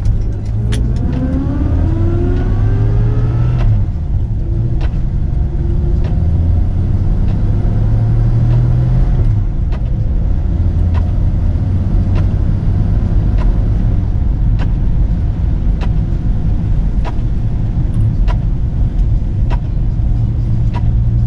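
Rover P4 100's straight-six engine pulling the car along, revving up with a rising note in the first few seconds, then running steadily at cruise. A light click repeats about once a second over the engine.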